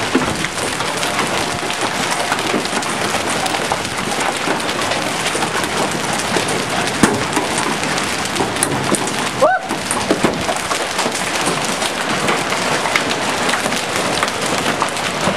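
Hailstones pelting down: a dense, steady clatter of small hits with no rain in it. The clatter breaks off for a moment about nine and a half seconds in.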